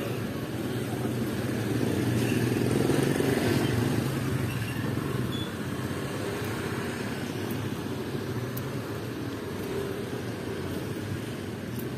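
Street traffic: motorcycles and cars passing, with one vehicle louder as it goes by a few seconds in.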